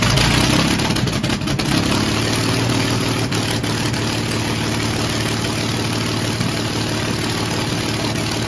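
North American P-51 Mustang's Packard Merlin V12 engine running at idle just after starting. It runs unevenly with some crackle for the first couple of seconds, then settles to a steady idle.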